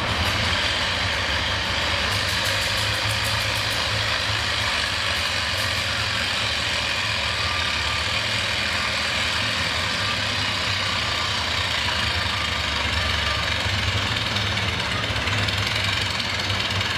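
Oliver 66 tractor engine running steadily under load while pulling a weight-transfer sled, its pitch holding even throughout.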